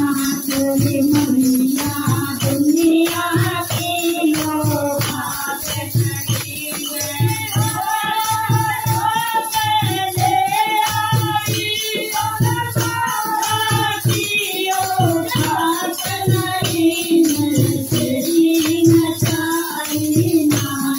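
A woman singing a Hindi devotional bhajan to the Mother Goddess into a microphone, over a steady dholak drum beat and jingling hand percussion.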